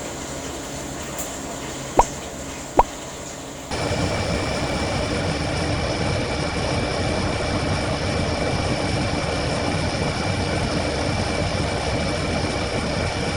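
Two sharp clicks, then about four seconds in a steady machine drone with a rushing whoosh starts and holds, the sound of a washing machine running its spin cycle.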